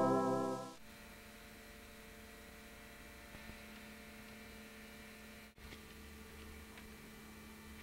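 Casio SA-20 keyboard music in an organ-like sound fades out within the first second, leaving a steady electrical hum with faint hiss. The hum cuts out for an instant about five and a half seconds in, and a few faint ticks follow.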